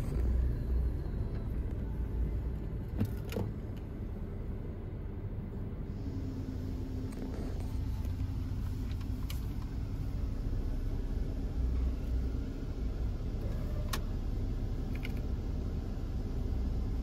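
Mark VII soft-touch car wash running over the vehicle, heard from inside the cabin: a steady low rumble of spinning cloth brushes and water spray on the body. A steady hum joins in about six seconds in, and a few sharp taps sound now and then.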